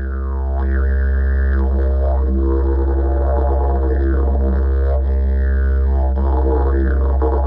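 Didgeridoo music: a steady low drone with overtones that sweep up and down again and again.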